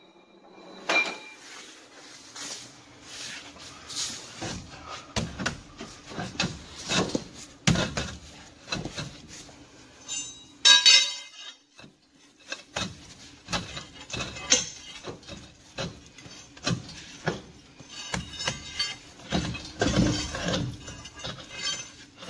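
Irregular metallic clanks, knocks and clinks as a steel inner dual truck rim is worked loose from a spoke-wheel hub and pulled off. One ringing clink comes about eleven seconds in, and a louder run of knocks near the end.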